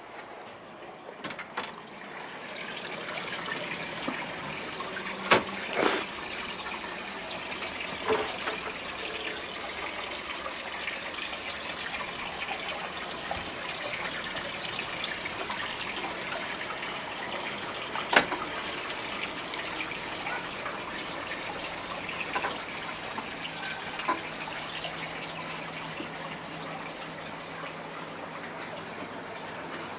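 Water trickling steadily in a garden water feature, with a few sharp clicks or knocks now and then.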